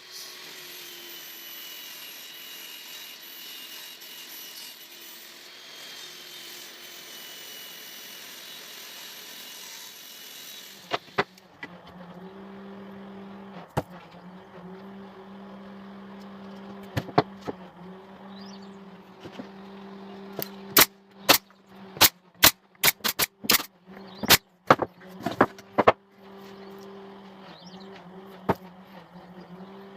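Table saw running with a steady high whine for about the first ten seconds. After that, a steady motor hum with scattered sharp knocks, turning into a quick run of sharp snaps a little past the middle.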